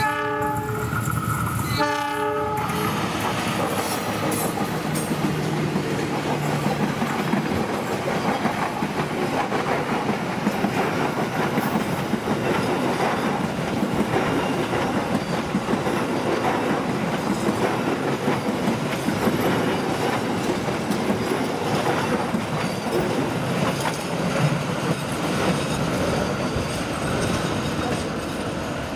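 Diesel locomotive horn sounding twice in short blasts at the start, then a train rolling through the station with a steady clickety-clack of wheels over the rail joints.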